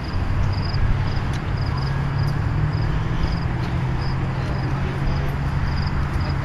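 Outdoor ambience: a steady low rumble, with a faint high chirping repeated about twice a second.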